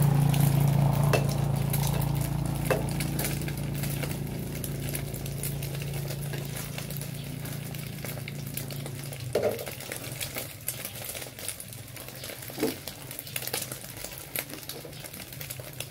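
Metal spatula scraping and clinking in a frying pan as eggs are stirred and turned, over a faint sizzle of frying. A low steady hum fades away over the first half.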